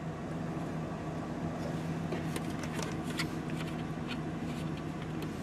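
Steady electrical hum from a CB radio setup's external speaker, with scattered small clicks of the radio's knobs and controls being handled and a sharper click near the end.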